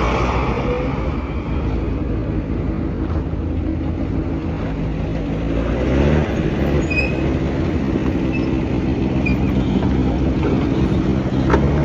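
Vehicle engine running steadily, with a short rise in pitch about six seconds in.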